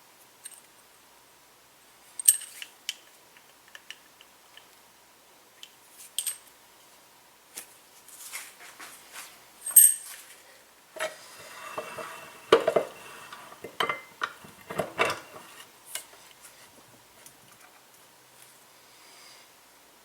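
Metal parts of a coilover shock being handled during teardown, clinking and clattering: a few separate sharp metallic clinks with a short ring, then a busier stretch of clatter and scraping about halfway through.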